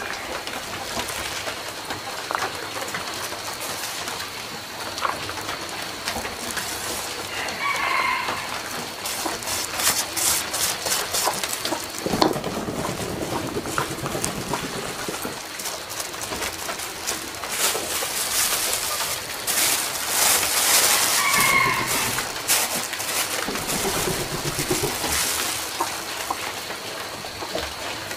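Domestic chickens calling, with two short pitched calls about 8 and 21 seconds in, over a steady run of clicks and rustling.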